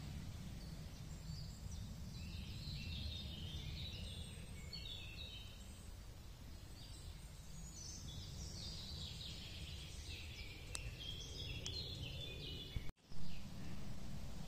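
Songbirds singing runs of short, high stepped notes over a steady low rumble of outdoor background noise. About thirteen seconds in the sound drops out for an instant, then gives a short loud knock.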